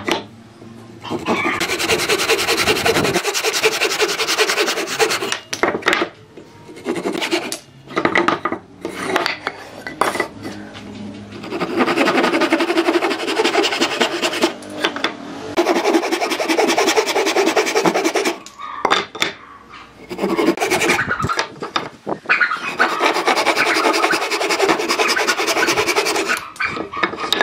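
Handsaw cutting through a stack of small wooden blocks: quick back-and-forth rasping strokes in several bouts of a few seconds each, with short pauses between them.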